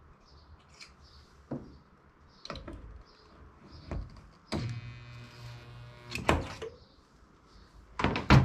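Stud-welder dent-puller gun welding a pull stud onto a truck's steel roof panel: a steady electric hum of about a second and a half, ended by a sharp click. Scattered clicks of the gun being handled come before it, and louder clicks and knocks near the end.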